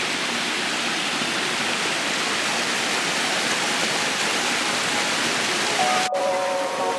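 Steady rush of a small waterfall pouring into a pool. About six seconds in it breaks off abruptly and held musical tones begin.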